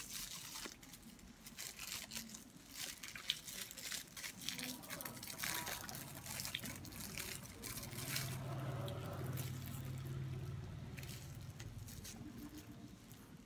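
Faint, irregular crinkling and crackling of a bánh ít's wrapping being handled and peeled open by hand.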